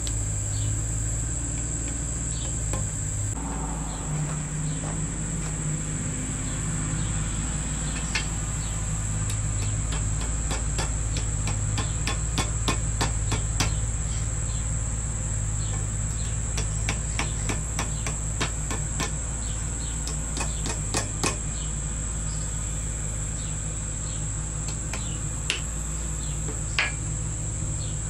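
Hammer tapping a sword blade on an anvil to straighten it: a long run of light, quick metal taps, a few a second, through the middle, with a few single taps near the end. Crickets chirp steadily throughout.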